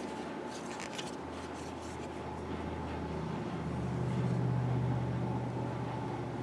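A steady low mechanical hum that swells louder about four seconds in and then eases back, with a few light clicks and rustles of a wooden carving being handled in the first two seconds.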